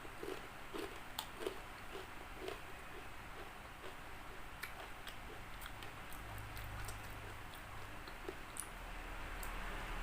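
A person chewing crispy fried chicken close to the microphone: irregular sharp crunches and wet mouth sounds.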